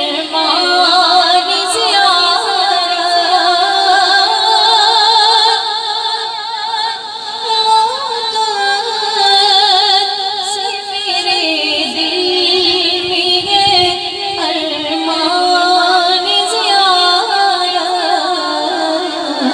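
A woman singing a devotional Urdu song into a microphone with an echo effect, in long, ornamented held notes with a wavering vibrato.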